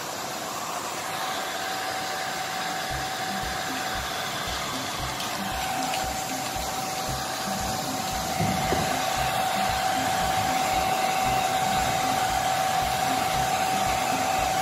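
Handheld hair dryer blowing steadily on a dog's wet fur, with a steady whine over the rush of air. It gets a little louder from about eight seconds in.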